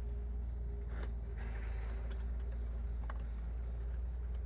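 Steady low background hum with a few faint light taps from pieces of wood being handled during a glue-up.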